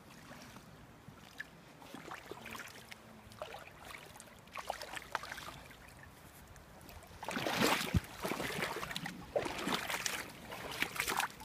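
River water lapping quietly, then splashing in rough bursts from about seven seconds in as a hooked salmon churns the surface near the bank.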